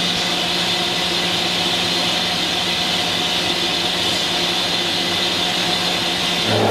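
Kitamura Bridgecenter-6G double-column machining center running steadily, its face-mill spindle turning. Near the end a new steady low hum with overtones sets in as a 160 mm ten-insert face mill enters a cut in S50C steel.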